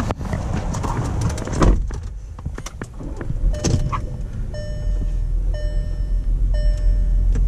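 Volkswagen car door clicking and rattling, then shut with a solid thunk about a second and a half in. Then the car's warning chime starts, repeating about once a second, and a low steady hum sets in partway through as the engine starts and idles.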